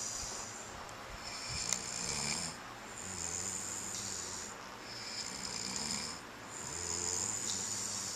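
A man and a young child snoring together in their sleep, each breath a rasping snore of a second or two, repeating in a slow rhythm.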